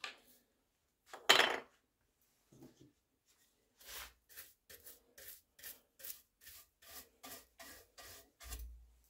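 A hand bench brush sweeps shavings out of the barrel channel of a wooden rifle stock in quick, even strokes, about three a second, from about four seconds in. It is preceded by one louder scrape about a second and a half in.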